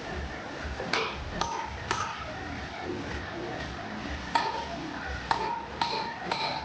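Blacksmith's hammer striking metal on an anvil, each blow a sharp hit with a short metallic ring. There are three blows in quick succession about a second in, then four more from the middle onward.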